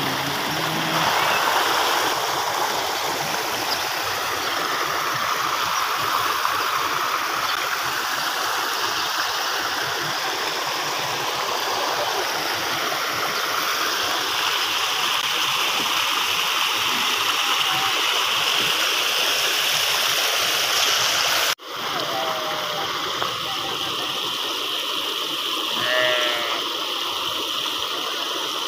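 Muddy floodwater rushing and churning over an earthen bank in a steady torrent. After a short break about two-thirds of the way through, sheep bleat a few times over the water.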